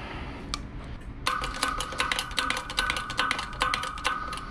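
Hydraulic bottle jack on a shop press being pumped by its handle, starting about a second in: quick strokes, two to three a second, each a cluster of metallic clicks with a ringing squeak. The ram is being driven down to press a new bearing onto the differential's snout.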